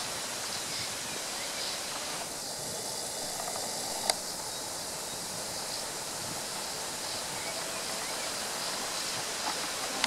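Steady rushing outdoor ambient noise, with one sharp click about four seconds in.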